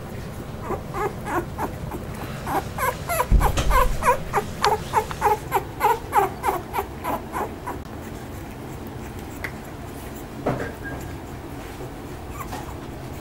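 Newborn American bully puppies whimpering: a run of short, squeaky cries, each falling in pitch, about two a second, with a low bump about three seconds in. After that it goes quieter, with one more cry later on.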